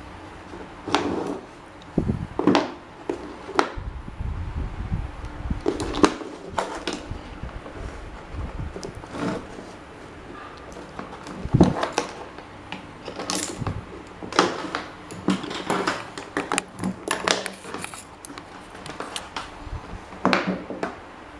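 Irregular clinks, knocks and scrapes of metal parts being handled and worked on by hand.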